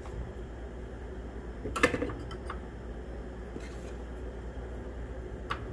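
A few light taps and scrapes of a cup scooping wheat flour out of a canister, the loudest about two seconds in, over a steady low hum.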